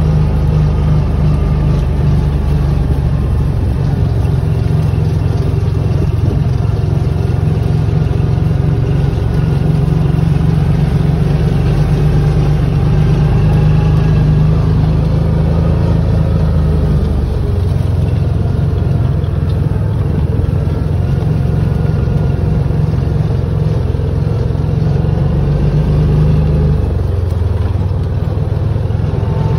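Vehicle engine running steadily as it drives slowly across rough, grassy fields, with a loud low drone whose pitch shifts a couple of times.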